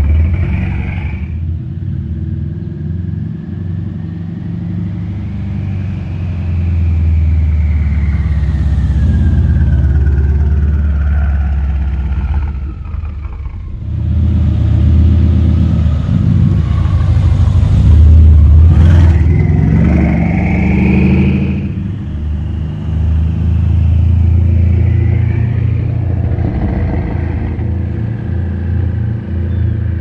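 Exhaust of a 2012 Mercedes E63 AMG's tuned twin-turbo V8, fitted with downpipes and a custom X-pipe, running loud with the revs rising and falling. The sound drops off briefly a little before halfway, then builds again, with one sharp crack a little past halfway.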